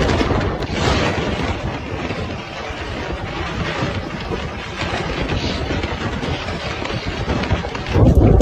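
Thunder rumbling on without a break, with a louder boom swelling up near the end.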